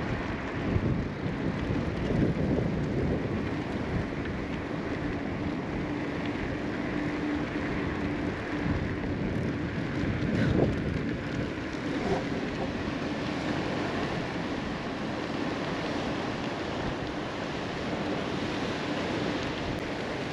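Steady wind noise rushing over the microphone of a camera carried on a moving bicycle.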